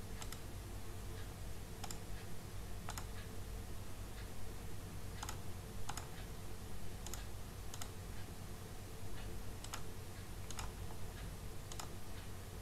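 Computer mouse clicking: irregular sharp clicks, about one a second, over a steady low hum.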